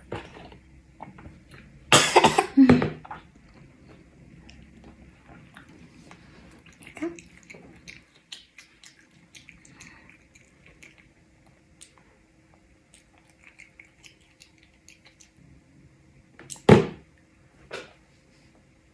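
A toddler eating at the table: small scattered clicks of chewing and a fork against a ceramic bowl. A cluster of louder knocks comes about two seconds in, and a single sharp knock near the end.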